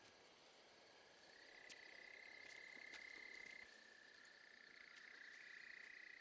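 Faint insect ambience: a steady high trilling, like crickets, that swells about a second in, with a few faint ticks.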